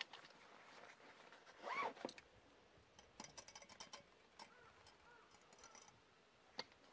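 Faint handling sounds of a stainless gooseneck kettle and a wire pour-over coffee dripper stand on a camp table: a click as the kettle is set down, a run of small ticks and light clinks, and another click near the end. A short rising-and-falling call about two seconds in and two fainter chirps later stand out over the near-quiet background.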